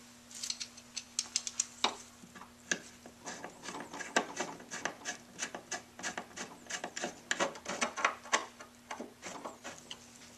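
Screws being tightened by hand with a Phillips screwdriver through the metal seat bracket of an office chair: a run of quick, irregular clicks and scrapes, several a second.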